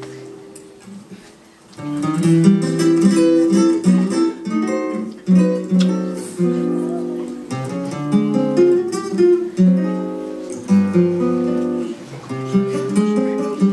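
Solo acoustic guitar playing a tango's introduction. It opens softly with a fading note, and from about two seconds in runs on with plucked melody notes and chords.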